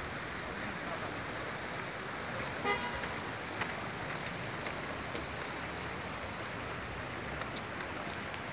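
Steady outdoor town background noise, with one short vehicle horn toot about a third of the way in.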